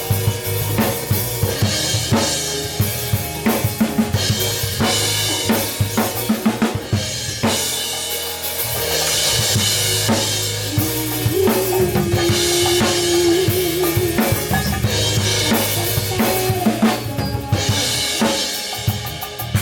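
A band playing through a sound check: a drum kit with kick, snare and cymbals keeping a steady beat over low bass notes. About halfway through, another instrument holds a wavering note for a few seconds.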